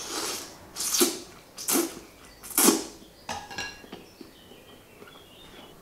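Eating beef pho with chopsticks: a few short slurps, then wooden chopsticks clicking against a ceramic bowl with a brief ring.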